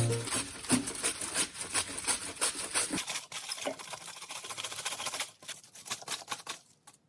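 Quick, irregular light tapping and clicking of kitchen utensils during food preparation, thinning out toward the end.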